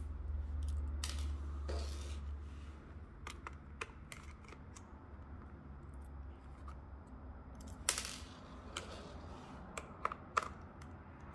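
Small screws being backed out of the plastic back case of a Texas Instruments graphing calculator with a precision screwdriver: scattered light clicks and ticks of the driver bit, screws and case being handled, with one louder, brief handling noise about eight seconds in. The screws were not tight.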